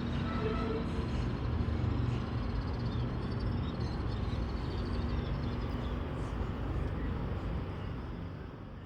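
Steady low rumble of outdoor location sound, fading out near the end.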